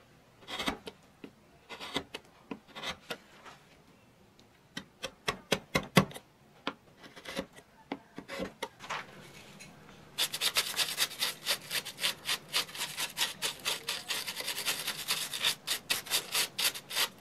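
Half-round wood-carving gouge pushed by hand through wood, making short scraping cuts here and there. About ten seconds in, a quick run of rasping strokes begins, several a second.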